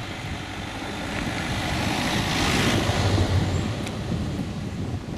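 A road vehicle's engine and tyre noise swelling and fading as it passes by, loudest about three seconds in.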